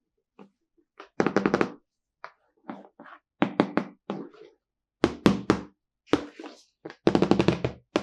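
Small plastic toy pieces from an Anpanman kitchen-car play-food set being handled, with hard clicks and knocks as they are set down and fitted together. The sound comes in short quick runs of several strikes each, about seven times.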